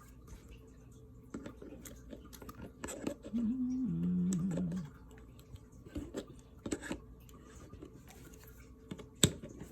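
Scattered small clicks and scrapes of hard plastic and metal parts as a pistol weapon light and its mount are handled and the mounting screw is tightened, with one sharp click near the end. About halfway through, a short hummed voice sound lasts a second and a half.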